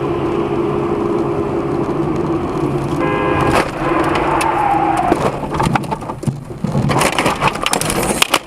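Steady vehicle running noise, then a brief falling tone around the middle, then a run of sharp cracking and crunching impacts through the second half: a road collision.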